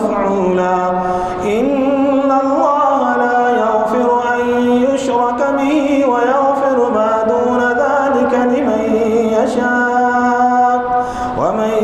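An imam's voice reciting the Quran aloud in a slow, melodic chant, holding long drawn-out notes that step up and down in pitch.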